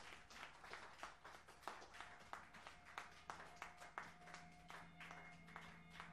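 Scattered, faint handclaps from a small live audience at the end of a song. Faint held tones come in about two seconds in, and a low steady tone about four seconds in.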